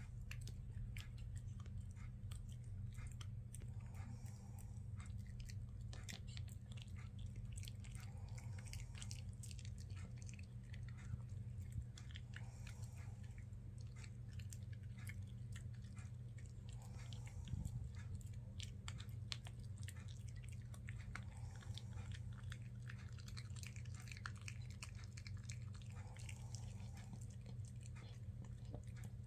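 A small black poodle gnawing a dog chew: a steady run of small clicks and crunches from its teeth, over a steady low hum.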